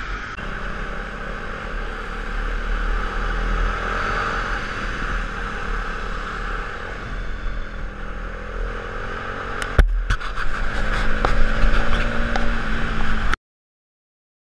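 Onboard audio of a KTM Duke 390 lapping a race track: steady wind rush over the bike-mounted camera's microphone, with the single-cylinder engine running and changing pitch underneath. There is a sharp knock about ten seconds in, then some clatter, and the sound cuts off abruptly near the end.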